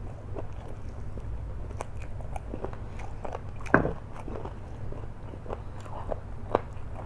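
Close-miked eating sounds of a person chewing flat rice noodles: irregular wet chewing and mouth clicks, with one louder click a little under four seconds in.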